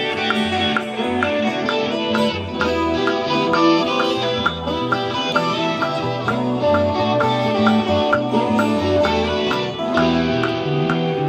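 A song with plucked guitar and a steady beat, played back through the studio monitor speakers in the recording session's control room.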